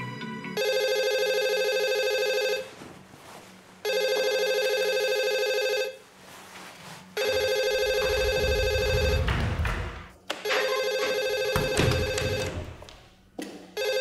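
Telephone ringing with a steady electronic ring tone, four rings of about two seconds each with short gaps between them. Some rustling and a few thumps and clicks come between and under the later rings.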